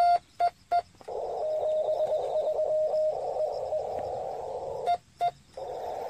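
Morse code (CW) from a Yaesu FT-817 transceiver. The last few keyed dits of the sending station's own sidetone come first. About a second in, the receiver's narrow-filtered band of hiss starts, with a fainter Morse reply at a slightly lower pitch, and two short dits are keyed near the end.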